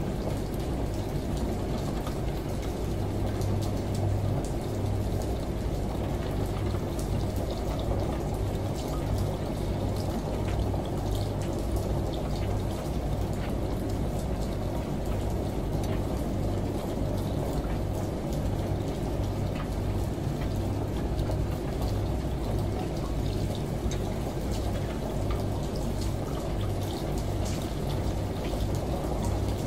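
Steady mix of running shower water and rain, with scattered drop ticks, over a low, uneven hum from a running washing machine.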